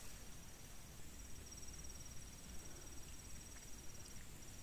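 Insect trilling steadily at a high pitch, with two short breaks, over a faint low rumble.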